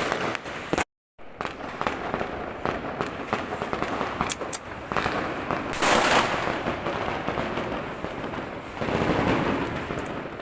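Fireworks and firecrackers crackling and popping continuously, with many sharp bangs layered together. The loudest burst comes about six seconds in, and the sound cuts out completely for a moment about a second in.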